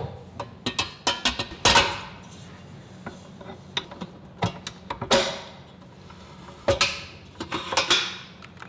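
Stainless steel dough hook being fitted onto a stand mixer's attachment shaft above a steel bowl: a series of metal clicks and clanks, a few of them ringing out briefly.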